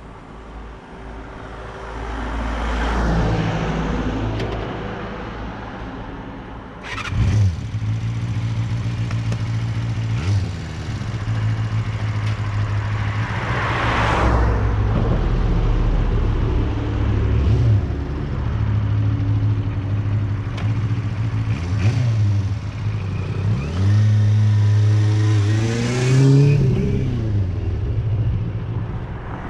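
Motor vehicles passing close by on a road, several in turn, each swelling and fading, over a steady engine hum. Near the end an engine revs up and down sharply.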